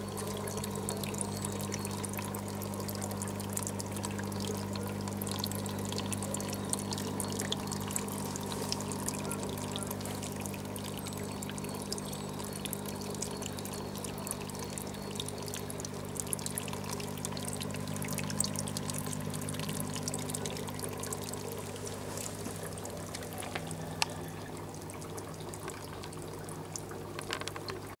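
Water trickling and splashing down a homemade rock-wall waterfall in a vivarium, with many small splashes. A steady low hum runs underneath from the small submersible pump that feeds it.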